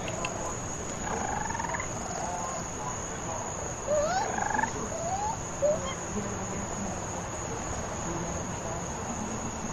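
Baby raccoons (kits) giving short rising chirps and trills, a few about a second in and a loud cluster around the middle, over a steady high-pitched background drone.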